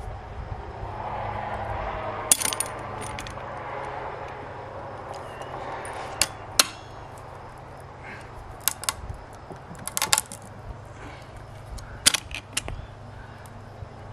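Locking pliers clinking and clicking against a spark plug and the outboard's cylinder head as the plug is worked loose: a scatter of short, sharp metal clicks, some in quick pairs or triples, over a low steady hum.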